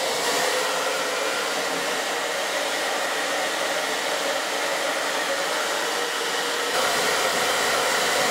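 Handheld hair dryer switched on and blowing steadily into an open plastic toolbox to dry rain-wet tools. About seven seconds in the rushing gets slightly louder and deeper.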